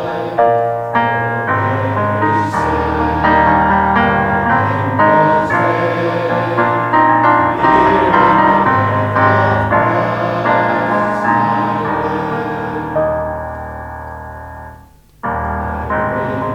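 Slow instrumental piano music, single notes over held chords. It fades almost away about fifteen seconds in, then comes back suddenly.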